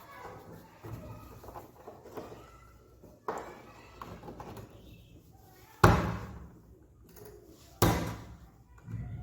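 Three sharp thuds, the loudest about six seconds in, each dying away quickly.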